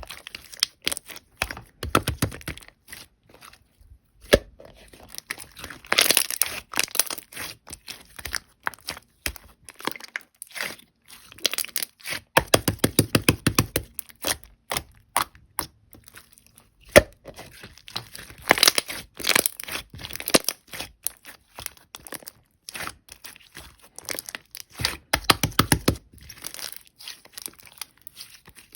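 Clear slime being squeezed and pressed by hand, giving dense crackling clicks and small pops in repeated bursts every few seconds, some with a dull low squelch underneath.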